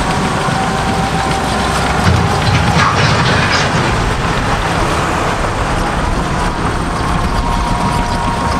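Cat D6K2 bulldozer working, its diesel engine and tracks running steadily, with a louder surge about two to three seconds in and a faint steady whine on top.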